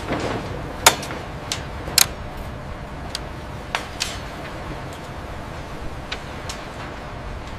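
Construction-site ambience: a steady low rumble and hiss with sharp clicks or light metal taps at irregular intervals, the loudest two just under a second in and about two seconds in.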